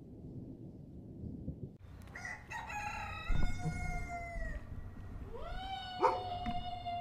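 A rooster crowing twice: a long drawn-out crow starting about two seconds in, then a second that rises into a long held note near the end. Two sharp knocks, one during each crow, are the loudest moments.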